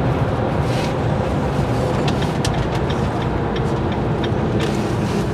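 Motorhome on the move, heard inside the cab: a steady low engine and road rumble, with a few light clicks in the middle.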